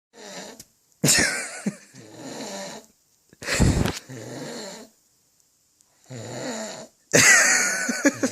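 A heavily drunk man snoring loudly: a loud, rough snore every few seconds, each followed by a quieter breath, with silent pauses between.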